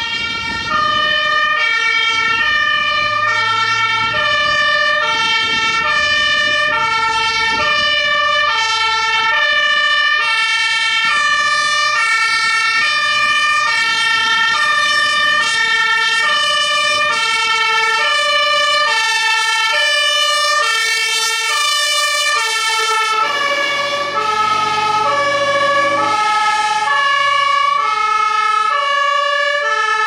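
German two-tone fire engine sirens sounding continuously, alternating between a high and a low note. The pattern shifts in pitch about three-quarters of the way through.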